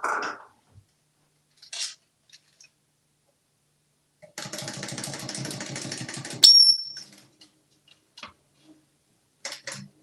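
Clockwork motor of a small plastic wind-up toy chick buzzing rapidly for about two seconds. It is cut off by a sudden sharp, high squeak, with a few faint taps around it.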